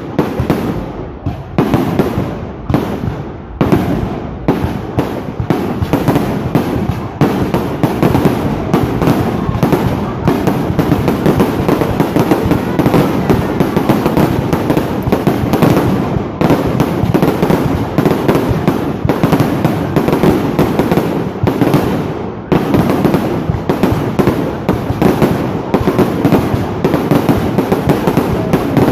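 Fireworks going off in a loud barrage: separate bangs at first, then merging after several seconds into a near-continuous rapid crackle of explosions.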